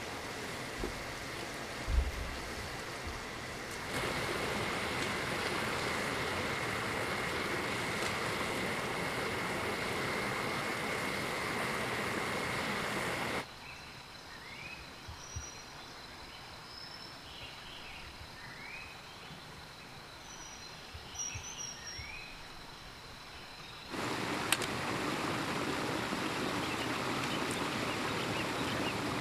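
Steady rush of flowing stream water, cutting abruptly to a quieter stretch of forest about 13 seconds in, where birds give short rising chirps over a thin steady high tone, then cutting back to the rushing water about 24 seconds in.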